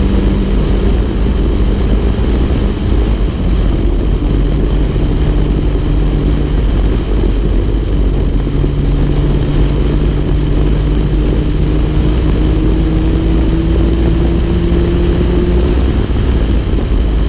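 Onboard sound of the Exocet Off-Road's turbocharged Mazda Miata 1.8-litre four-cylinder under power on track, under heavy wind and road rumble in the open cockpit. The engine note climbs slowly through a long pull in the middle and drops away near the end.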